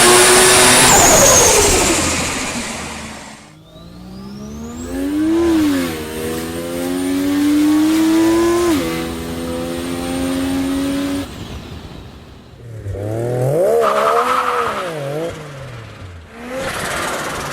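Mazda Eunos Cosmo's 20B three-rotor turbocharged rotary engine, revved in a string of short clips: the pitch climbs and falls with each blip of the throttle, and the sound cuts abruptly from one clip to the next. It opens with a loud rush that fades over the first few seconds.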